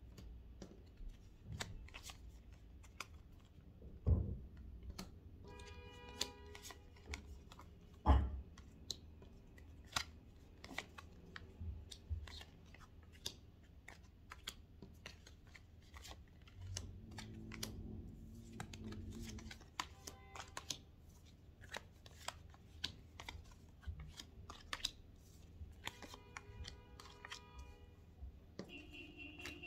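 Tarot cards being handled and shuffled by hand: a run of irregular soft clicks and taps, with two louder thumps about 4 and 8 seconds in.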